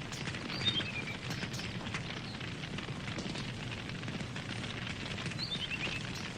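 Wood campfire crackling and popping over a low steady rush of burning. A bird calls twice, each a quick descending run of notes, about a second in and again near the end.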